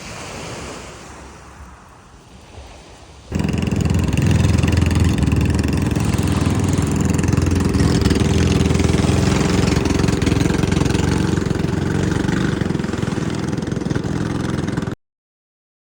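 Quiet surf and wind, then, about three seconds in, an abrupt switch to a loud engine running steadily with a low hum, which cuts off suddenly near the end.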